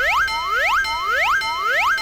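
Synthetic railroad crossing warning sound effect: a repeating rising, springy tone about three times a second over a steady high ringing tone.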